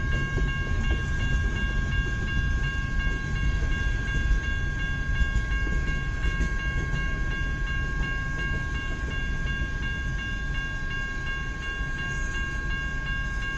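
Freight train cars rolling past with a continuous low rumble of wheels on rail. Several steady high tones ring over it throughout.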